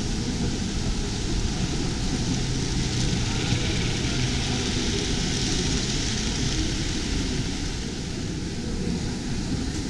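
Steady hubbub of a busy indoor hall: indistinct crowd chatter mixed into a constant wash of background noise, with no single sound standing out.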